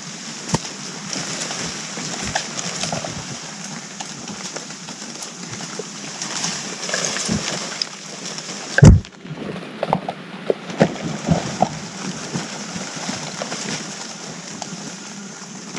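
Agile mangabeys moving over dry leaf litter and twigs close by: rustling and scattered twig snaps, with one loud thump about nine seconds in followed by a quick run of sharp snaps and clicks.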